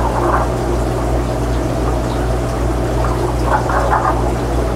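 Aquarium running water, bubbling and trickling over a steady electrical hum from the tank equipment, with splashier moments near the start and again about three and a half seconds in.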